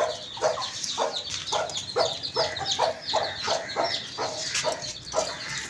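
A hen clucking with chicks peeping: a steady run of short calls, about three a second.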